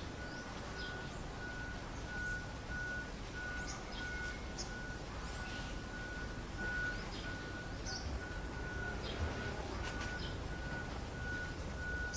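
Outdoor ambience: scattered short high chirps and a steady high note pulsing about twice a second, over a low background hum.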